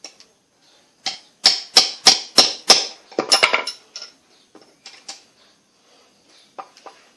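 Ball-peen hammer striking a jigsaw's small gear shaft and bearing, metal on metal, to shift the bearing on the shaft. A quick run of about six sharp, ringing strikes, roughly three a second, comes first, then a tight cluster of blows, then a few lighter taps.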